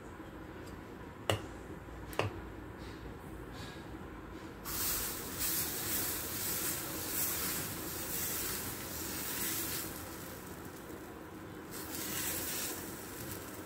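Dal chilla batter sizzling in a hot nonstick frying pan as it is ladled in and spread, starting about five seconds in and easing off, then rising again near the end. Two sharp clicks come before the sizzling starts.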